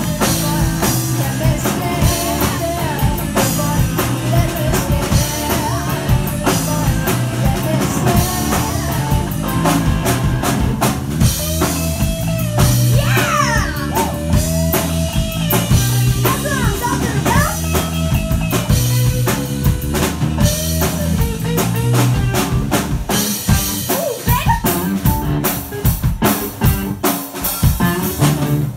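Live band music with a rock drum kit and electric guitar; through the middle the guitar plays a lead line, bending and sliding notes.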